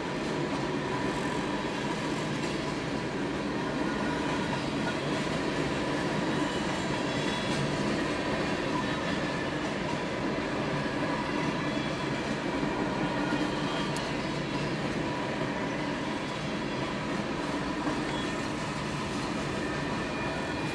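Freight cars of a Norfolk Southern train rolling steadily past a grade crossing: a continuous rumble and rattle of steel wheels on the rails, even in level throughout.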